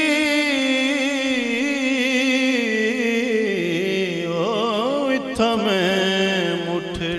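A solo voice singing a long, wavering, ornamented note of a kafi (Sufi devotional song). The pitch steps down about halfway through, into quicker turns.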